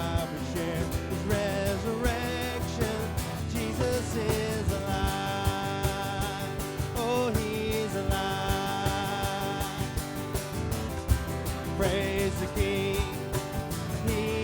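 Live worship band music: drums keeping a steady beat under guitars and long, wavering sung notes.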